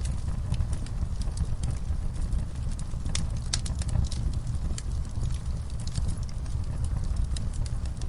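Fire burning in a fireplace: a steady low rumble of flames with frequent sharp, irregular crackles and pops.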